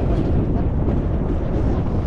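Wind buffeting the microphone at sea: a steady low rumble with no pauses.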